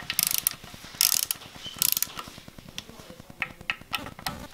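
Hand ratchet clicking in several short runs of rapid clicks as Torx bolts are run down snug into a BMW N54 engine's vacuum pump, with a few fainter clicks near the end.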